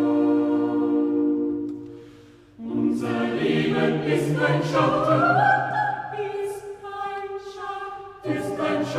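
Chamber choir singing a motet live. A held chord fades away, and about two and a half seconds in the voices come back in with a new phrase, with one upper line rising. They break off briefly near the end before entering again.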